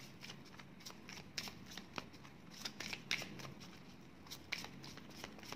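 A deck of divination cards being shuffled and handled to draw a card: light, irregular card clicks and rustles.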